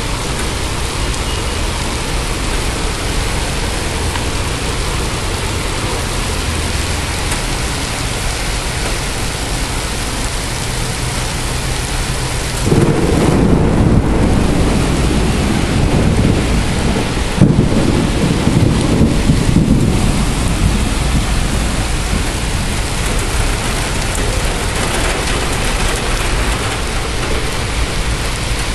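Heavy rain falling steadily. About halfway through, thunder rolls in as a loud low rumble, with a second rumble breaking in a few seconds later before it dies back into the rain.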